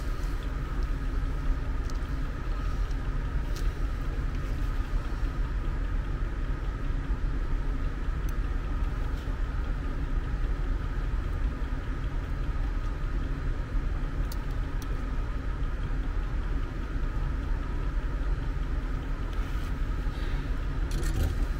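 A steady low machine hum carrying a faint high tone, even in level throughout, with a few faint clicks.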